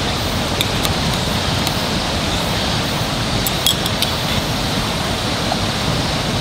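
Metal chopsticks clicking lightly against a stainless steel plate as pieces of steak are picked up: a few sharp clicks about a second in and again around the middle, over a steady rushing background noise.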